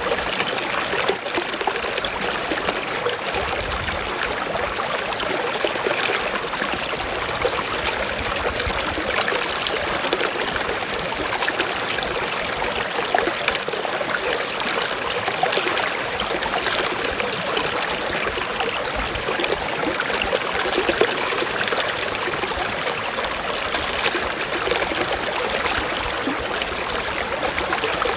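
Running water trickling and splashing steadily, like a small stream, as an unbroken hiss full of fine splashes.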